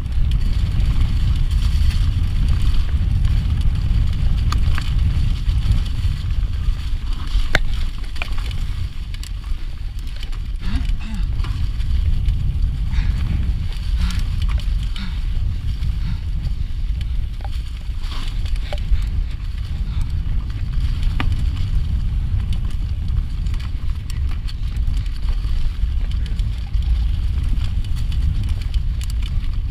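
A 29er mountain bike rolling fast down leaf-covered dirt singletrack, its tyres crackling over dry leaves, with scattered clicks and rattles from the bike over bumps. Wind buffets the microphone in a steady low rumble, which is the loudest sound throughout.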